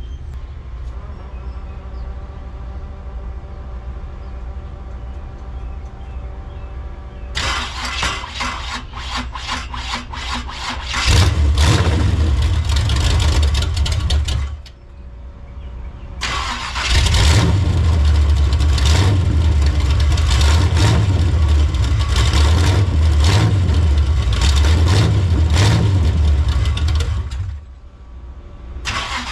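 Chevrolet Monte Carlo cold start: after a steady hum, the starter cranks about seven seconds in and the engine catches, runs a few seconds and dies. It is cranked again, runs for about ten seconds, drops out near the end and is cranked once more. The owner blames the hard starting on the fuel pump, perhaps a blown fuse.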